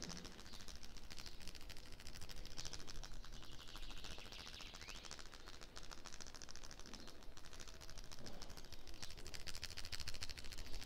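Hands working on a person during a massage, making a fast, dense run of light clicks and rubbing noises, with a faint bird chirp about halfway through.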